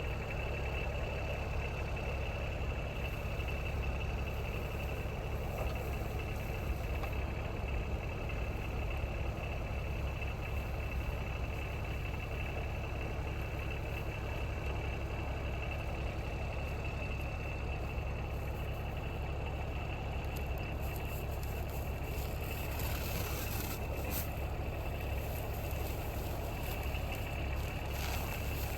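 Kubota side-by-side utility vehicle's engine running steadily, with a constant high whine over the engine sound.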